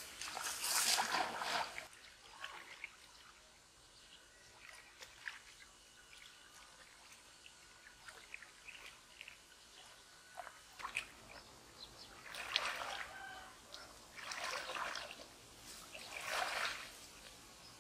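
Pond water splashing and sloshing as a man wades through it waist-deep. A long splash in the first two seconds, then a quieter stretch with faint ticks, then three more surges of sloshing about two seconds apart near the end.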